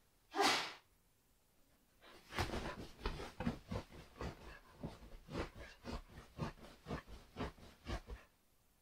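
Samoyed digging and scratching at a down duvet with its front paws: a run of quick rustling, scraping strokes, about three a second, after a single short loud burst of noise near the start.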